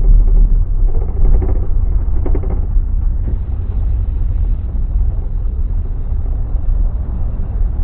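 A bus on the move: a loud, steady low rumble of engine and road noise.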